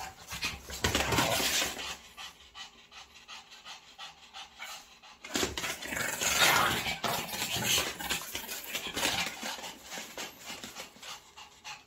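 Two Shih Tzu dogs play-wrestling, with dog breathing and vocal sounds and scuffling on a quilt, in two bouts: one in the first two seconds and a louder one from about five seconds in.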